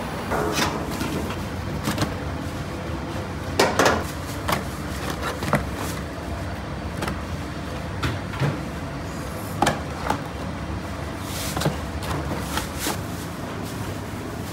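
Irregular knocks and clatters, about a dozen spread through, the loudest cluster about four seconds in, over a steady low hum.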